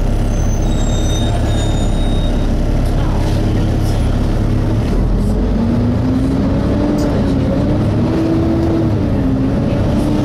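Volvo B7TL double-decker bus heard from inside while under way: steady engine and road rumble. About halfway through, the engine cooling fan starts up with a wail that rises in pitch and wavers up and down. The fan is a fault that runs regardless of whether the engine is hot or not.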